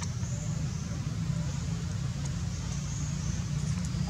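Steady low background rumble, like distant road traffic, with faint high-pitched wavering sounds coming and going above it.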